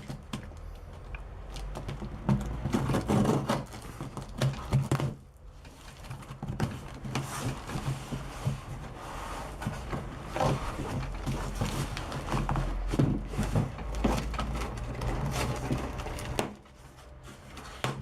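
Cardboard guitar shipping box being opened and handled: irregular rustling and scraping of cardboard with many small knocks and clicks.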